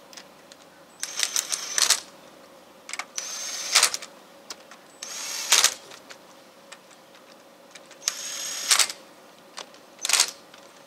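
Ratchet wrench clicking in several short bursts as wheel lug nuts are run on, each burst lasting under a second with a pause of two or three seconds between them.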